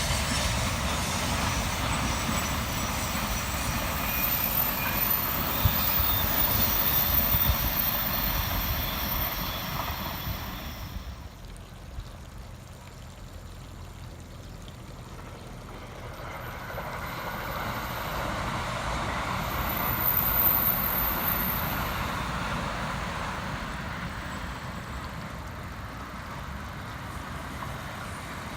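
Trains running past on the line: one train's rumble carries on and dies away about eleven seconds in, then another pass builds up, is loudest about twenty seconds in, and eases off.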